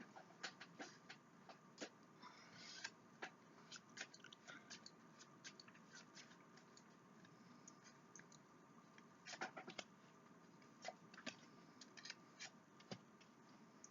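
Faint, irregular clicks and taps of tarot cards being handled and laid out on a table, with a short flurry about three seconds in and another near nine seconds.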